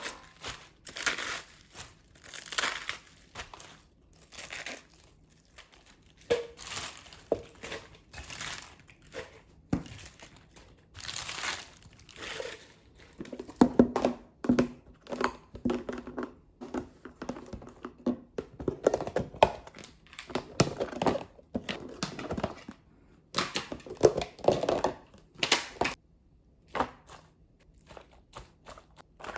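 Kitchen food-prep handling sounds: repeated crinkling and rustling of plastic packaging, with knocks and clatter of utensils and containers, busiest in the second half.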